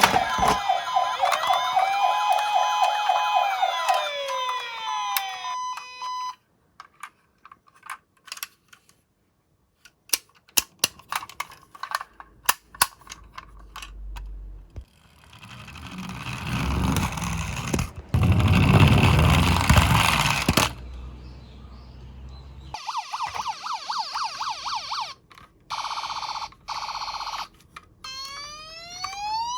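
Electronic toy siren sounds from battery-powered toy emergency vehicles: a dense electronic siren-and-jingle sound at first, a fast warbling yelp about two-thirds through, and a rising-and-falling wail starting near the end. In between come scattered plastic clicks and knocks and a few seconds of loud rolling rumble.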